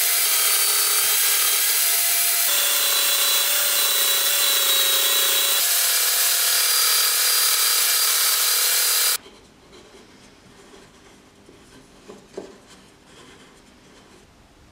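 AEG portable belt sander running on its side as a bench sander, grinding the edge of a wooden disc as it is turned against the belt on a pivot jig. The sound cuts off abruptly about nine seconds in, leaving faint handling noises and one small knock.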